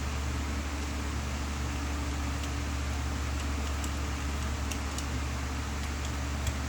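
A steady low hum, with a few faint, light clicks from about two seconds in.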